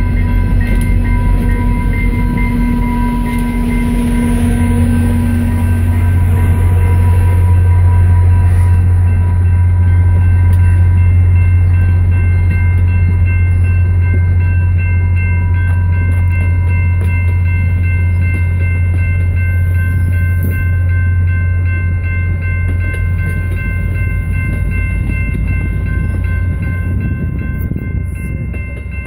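VIA Rail passenger train pulling away through a level crossing: the diesel locomotive's low steady rumble and the coaches rolling past. The crossing signal's bell rings steadily over the top.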